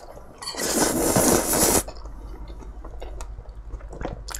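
A person slurping ramen noodles in spicy tteokbokki sauce: one long, hissy slurp lasting over a second, then quieter chewing.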